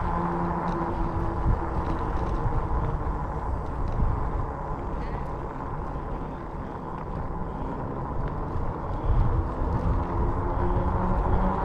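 Wind rushing over the microphone while riding a RadRover 5 fat-tire electric bike, with a steady hum from the tyres and rear hub motor underneath.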